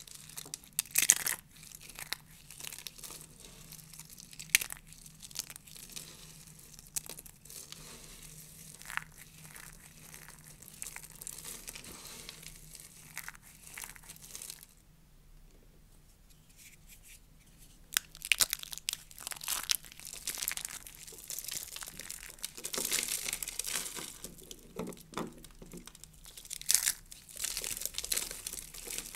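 Hands crushing and crumbling dry, brittle soap shavings and soap curls, giving crisp crackling crunches in uneven bursts. There is a quieter pause about halfway through, then denser, louder crumbling.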